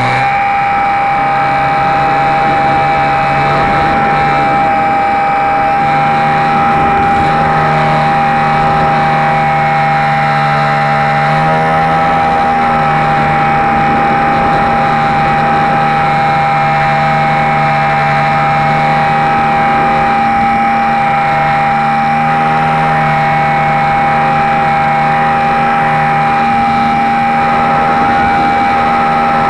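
Electric motor and propeller of a HobbyZone Super Cub RC airplane running in flight, heard through a camera mounted under the wing. A steady high whine runs under a lower drone that shifts up and down in pitch several times as the throttle changes, over a rushing hiss.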